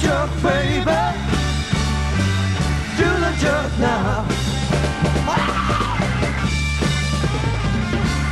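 1960s psychedelic rock song playing from a vinyl record. A steady repeating bass line and drums carry on throughout, and a wavering lead line bends up and down over them several times.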